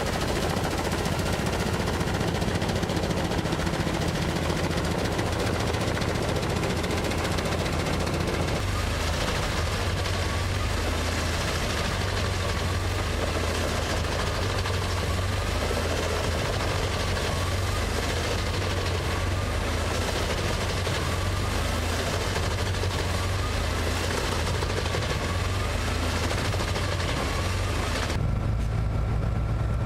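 Tractor-PTO-driven Jenz 820 Z drum wood chipper chipping logs: heavy engine drone under load with a dense, rapid clatter from the chipping. About two seconds before the end, the sound changes abruptly to a steadier, duller engine hum.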